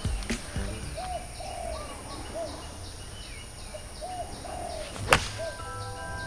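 An 8-iron striking a golf ball: one sharp crack of the clubface on the ball about five seconds in, the loudest sound. Before it a bird calls repeatedly with short rising-and-falling hoots.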